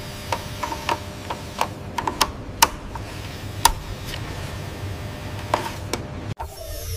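Irregular small mechanical clicks and ticks, about a dozen, most of them in the first four seconds, over a steady low machine hum. The hum cuts off suddenly shortly before the end.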